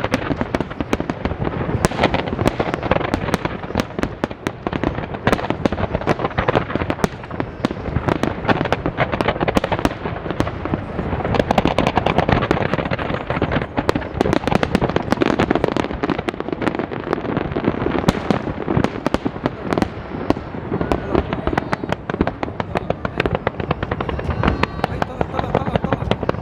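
Fireworks display going off continuously: a dense, unbroken barrage of bangs and crackling bursts, many per second, over a steady rumble.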